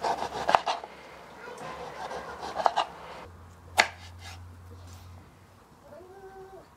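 Kitchen knife slicing a xoconostle (sour prickly pear) on a wooden cutting board: quick knife strokes knocking on the board during the first three seconds, then one sharp knock about four seconds in.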